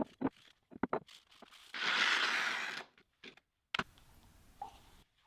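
A few light clicks and knocks of handling, then a hiss lasting about a second: cleaner sprayed onto a machined steel part to clean it before cold bluing. More clicks follow near the end.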